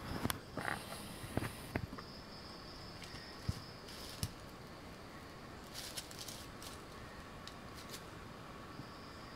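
Dry leaf litter crackling and rustling in short irregular bursts as a solitary tinamou (macuco) walks on the forest floor, busiest in the first two seconds. A steady high insect tone carries on behind.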